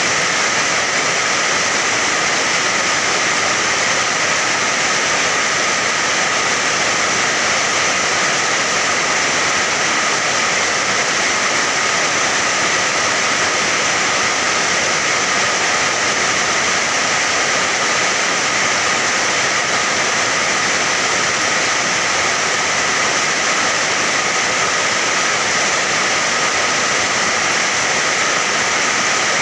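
Steady rain falling, a dense even hiss of water that never lets up.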